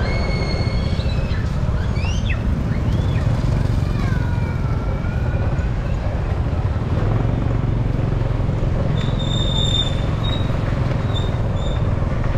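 Busy street ambience: a steady low rumble of traffic, with brief wavering voices in the first few seconds and a few short high-pitched beeps near the end.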